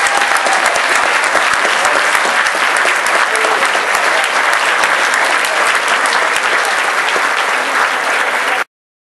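A large audience applauding, a dense steady clapping that cuts off suddenly near the end.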